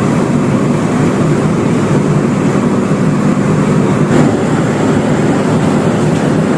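Steady, loud drone of a tanker's running machinery and ventilation, with one sharp knock about four seconds in.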